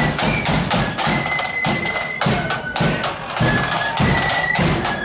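Loyalist flute band marching and playing: a flute melody of held high notes over a steady march beat of side drums and bass drum.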